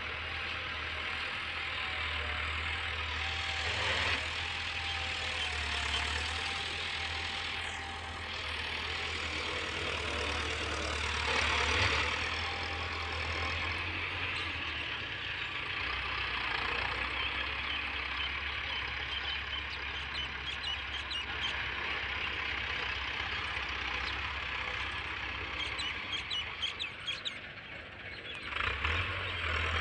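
Massey Ferguson 385 tractor's diesel engine running steadily as it pulls a chisel cultivator through the soil.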